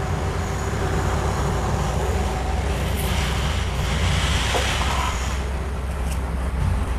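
Construction work by a workman, very noisy: a steady low machine rumble with a broad grinding hiss over it.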